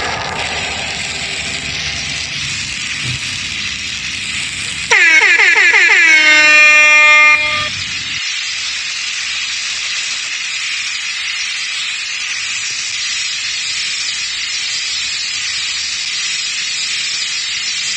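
A loud air horn blast about five seconds in, lasting about two and a half seconds; its pitch slides down at the start and then holds. A steady hiss runs underneath throughout.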